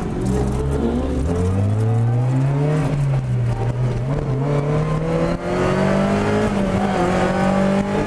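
Lotus Elise rally car's engine heard from inside the cockpit, pulling hard under acceleration. Its pitch climbs after about a second, drops back briefly near three seconds and again near five and a half seconds, then rises more slowly and holds near the end.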